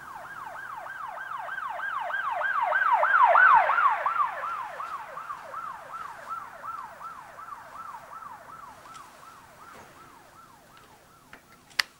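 Emergency-vehicle siren in a fast yelp, a rising-falling wail about three times a second, growing louder to a peak about three and a half seconds in, then fading away as it passes, a little lower in pitch afterwards. A single sharp click just before the end.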